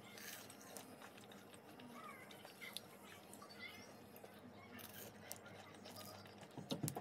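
Faint handling sounds as a breadcrumb-coated fried SPAM stick is dipped and swirled in a bowl of creamy sauce: scattered light clicks and crackles, with a louder cluster of knocks near the end.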